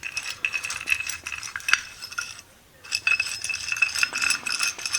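Metal parts of a small benchtop vise clinking and rattling against each other as it is reassembled, with a light metallic ring. The clatter pauses briefly about halfway through.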